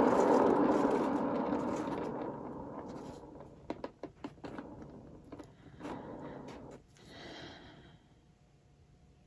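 Hairdryer blowing a steady rush of air, fading away over the first three seconds or so as it is turned off or taken away. Then a few light clicks and taps, a brief soft rush of air, and quiet.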